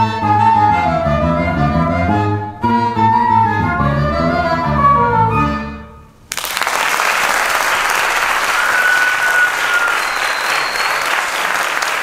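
Flute, accordion and electric bass play the closing phrase of a folk-jazz tune, fading out about six seconds in. Audience applause then breaks out and carries on, with a few short high whistles over it.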